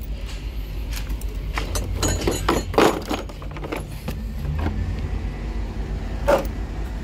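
Clear plastic blister packaging crackling and brass cutting-torch parts clicking as they are handled and lifted out of the tray. The clicks come in a cluster about two to three seconds in and once more near the end, over a steady low rumble.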